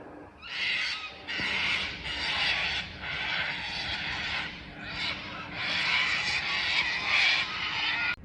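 Loud, harsh bird calls, a string of long rasping cries one after another with brief breaks between them.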